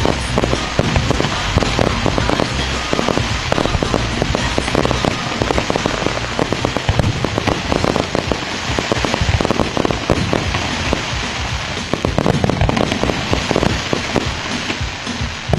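Fireworks display: aerial shells bursting amid a dense, unbroken crackle of many small rapid pops from crackling stars.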